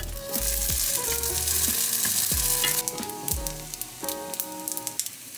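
Rice paper wraps sizzling and crackling as they pan-fry in a little oil, the sizzle easing somewhat after about three seconds.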